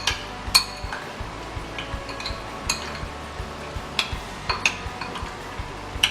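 Spoon clinking against a bowl while mixing chicken pieces in a thick egg and corn flour batter, a few sharp clinks at uneven intervals.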